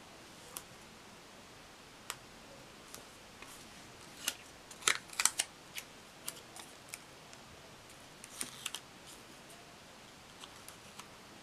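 Washi tape and paper stickers handled and pressed onto a planner page: scattered small crackles and clicks, with a busier, louder run of crackling around the middle and a shorter one a few seconds later.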